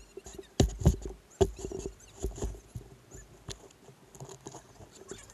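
A shoe stepping onto a wooden sandboard and hands pulling its rubber foot straps tight: a few sharp knocks about a second in, then soft scraping and rustling of sand, shoe and strap against the board.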